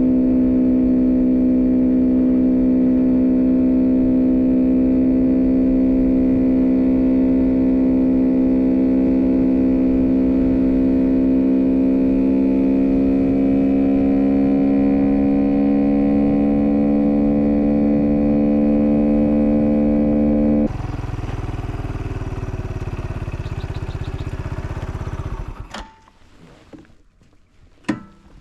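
Vehicle engine running at a steady, fairly high speed, a loud even hum whose pitch creeps slightly upward. About 21 seconds in it gives way to a quieter rushing noise, which stops a few seconds later.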